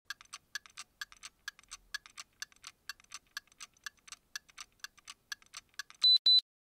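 Ticking of a watch, about two ticks a second, each tick followed by fainter clicks. Near the end come two short, high electronic beeps, the loudest sounds.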